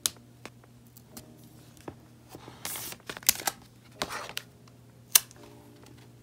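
Sheets of paper and plastic-sleeved sticker sheets being handled, with short crinkly rustles and several sharp clicks and taps, the loudest about five seconds in.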